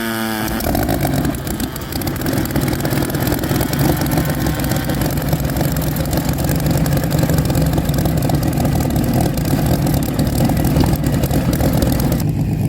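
Vintage 21-litre Rolls-Royce Kestrel V12 aero engine running in a classic racing boat, loud and steady with a deep rumble.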